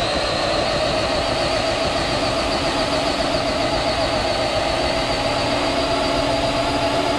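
Traxxas TRX-4 Sport RC crawler's electric motor and gears whining at a steady high pitch under load as it tows a person in a wheelchair, over the hiss of tyres and wheelchair wheels rolling on the walkway floor.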